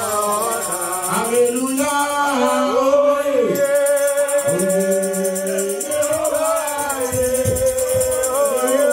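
Church worship music: voices singing over a long held note, with a fast, steady high-pitched percussion rhythm coming in about three and a half seconds in.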